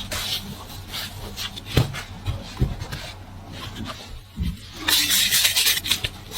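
Cooking and food-preparation sounds: light taps and clicks with a few low knocks, then a loud rasping scrape lasting about a second near the end.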